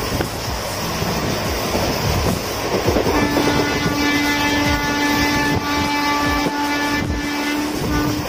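An express train running through a station without stopping: rumble and clickety-clack of the coaches on the track, with the horn joining about three seconds in as one long steady blast that breaks off briefly near the end.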